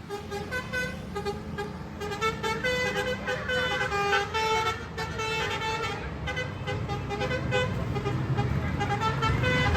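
Basuri 'telolet' multi-tone bus horn playing a quick melody of short, changing notes over and over, with the bus engine rumbling underneath and growing louder near the end.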